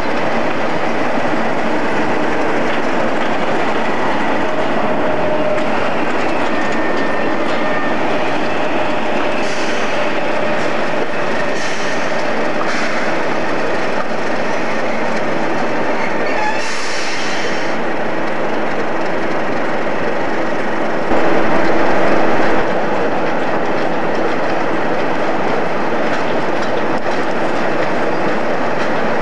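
Class 37 diesel-electric locomotives with English Electric V12 engines running as they move through a depot yard, a loud steady engine drone with faint whining tones. Several short high-pitched bursts come about ten, twelve and seventeen seconds in, and the sound grows louder for about a second and a half a little past twenty seconds.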